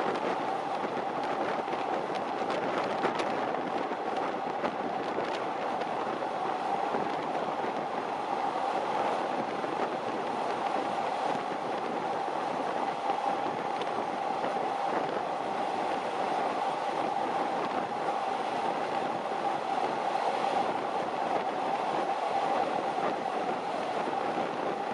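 A train running steadily along the track: continuous wheel-on-rail noise with a steady droning hum.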